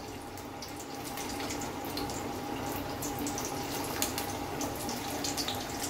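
Sabudana vada (sago-and-potato patties) deep-frying in hot oil: a steady sizzle with many small crackles, and a faint steady hum beneath.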